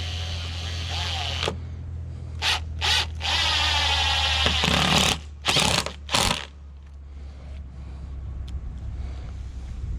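Power drill driving stainless steel screws: a run of about a second and a half, two short bursts, a longer two-second run, then two more short bursts, over a steady low hum.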